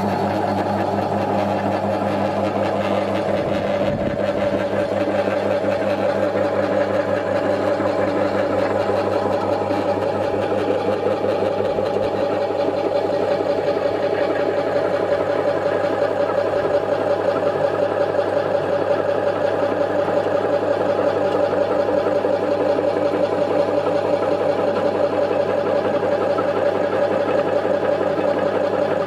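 Tanico TYK-20 tabletop vegetable slicer running with no load: its electric motor and spinning cutting disc give a loud, steady low hum with a higher whine above it.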